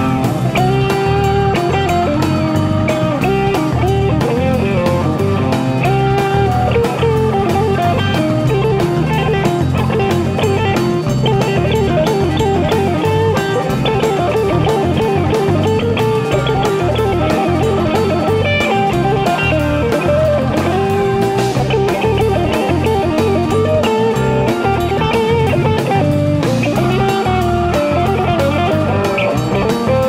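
Rock band playing live through an instrumental section: a lead electric guitar plays quick runs and bent, wavering notes over bass guitar and drums.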